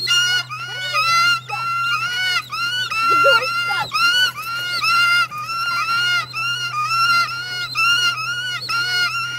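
Looped bird-screech sound effect for the animated attacking birds: the same short arched squawk repeated over and over, about two to three a second, over a steady low hum.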